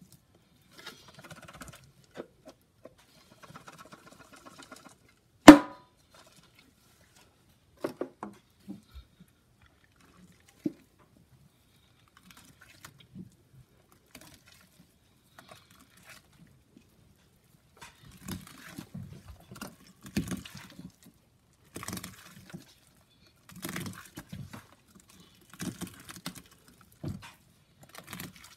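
A gloved hand squishing and kneading wet Comet cleanser and Pine-Sol paste in a stainless steel sink, squelching in bursts about every two seconds through the second half. Earlier, faint rustling as Comet powder is shaken from its can, and one sharp knock about five seconds in.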